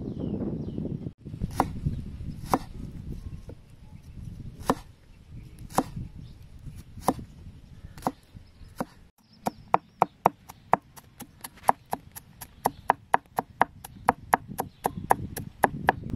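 Cleaver chopping peeled garlic cloves on a wooden chopping board: separate strikes about once a second at first, then after about nine seconds a fast, even run of chops, about four a second, mincing the garlic.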